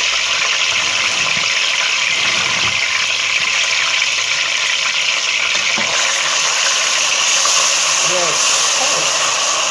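Blended pepper and onions sizzling in hot olive oil: a loud, steady frying hiss that grows a little brighter about six seconds in.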